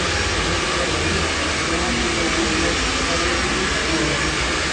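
Steady rushing noise, even throughout, with faint voices underneath.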